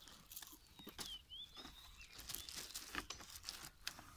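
Faint footsteps rustling and crackling through new grass and burnt stubble, in short irregular crunches, with a short high chirp about a second in.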